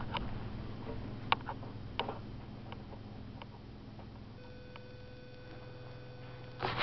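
Scattered sharp clicks and taps from RV window blinds being opened, closer together in the first few seconds and then sparser, over a steady low hum.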